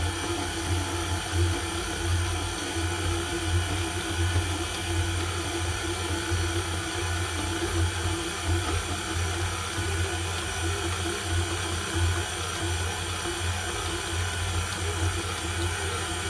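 KitchenAid stand mixer running steadily at constant speed, its dough hook kneading yeast pizza dough in a glass bowl, with a low motor hum.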